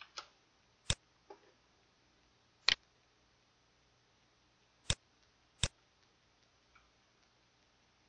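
Computer mouse clicks: a few sharp single clicks spaced one to two seconds apart, with fainter clicks between them.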